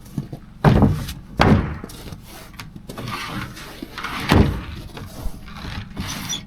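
Lumber, 2x6 boards, being handled and set down on a wooden platform: three loud wooden thumps, two close together about a second in and another a few seconds later, with lighter knocks between.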